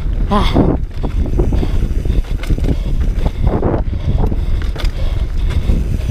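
Wind buffeting the microphone of a mountain biker's onboard camera while the bike runs down a bumpy dirt trail. There is a constant low rumble, with frequent rattling knocks from the bike over the rough ground.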